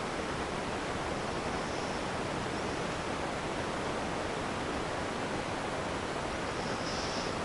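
A 52-inch ceiling fan running, making a steady rush of air.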